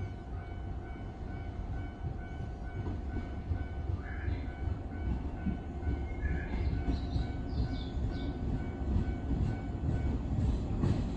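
JR East 189 series electric train pulling into the station at low speed, its low rumble slowly growing louder as it approaches.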